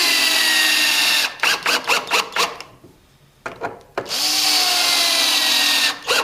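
Power drill driving 3-inch screws into a 2x4 block. There are two long steady runs of the motor, its whine sinking slightly as each screw bites. Each run is followed by a few short trigger bursts that seat the screw.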